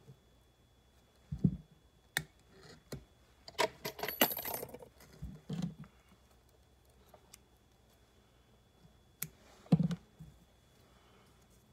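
Scattered clicks and a brief metallic jingling, like small tools clinking, from fly-tying tools and materials being handled at the vise. A dull knock comes just over a second in and another near the end.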